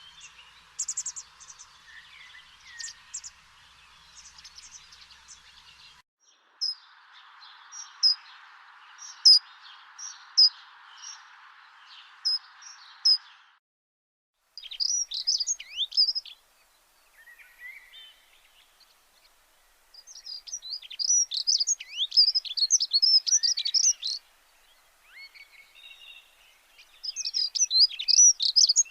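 Small birds chirping and twittering in quick, short, high calls that come in clusters. A steady hiss lies under them and drops out suddenly twice.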